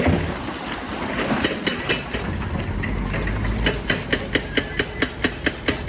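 Rapid, regular sharp knocks, about four to five a second, over a low engine rumble. A few scattered knocks come first, then the steady run starts a little past halfway.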